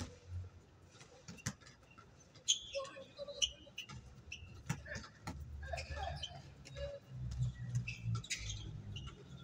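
Outdoor pickup basketball game: scattered short high sneaker squeaks on the court surface and a few sharp knocks of the ball bouncing, with faint shouts from the players over a low rumble.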